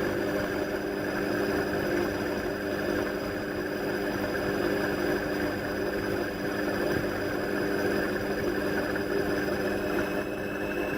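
Indesit washing machine running with a steady motor whine and drum rumble, the whine edging up in pitch near the end, picked up by a camera fixed to the door glass.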